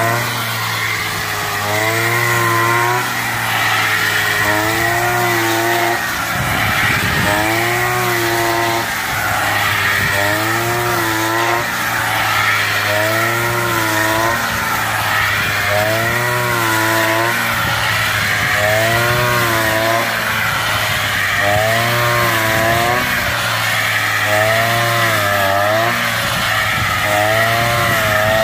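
Petrol brush cutter, rigged as a homemade rice cutter, running hard as it is swung through standing rice, its engine pitch dipping and rising again about every two seconds with each sweep.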